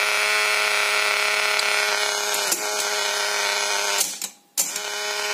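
Steady electrical buzz with many overtones from the loudspeaker of a 1960s Geloso Vanguard reel-to-reel tape recorder. It is interference from the recorder's running drive motor, which makes playback unlistenable; the owner suspects a filter capacitor no longer suppressing the motor's electrical noise. The buzz cuts out briefly about four seconds in, then returns.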